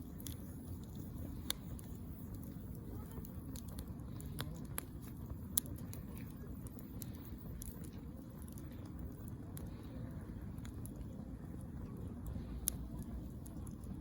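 Wood fire burning in a camping fire pit: a steady low rumble with scattered sharp crackles and pops, a few of them louder.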